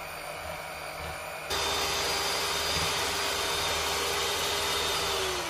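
Electric hand mixer running at high speed, its beaters whipping eggs and sugar into a thick white foam. The motor makes a steady whine that turns suddenly louder about a second and a half in, then drops in pitch and winds down near the end.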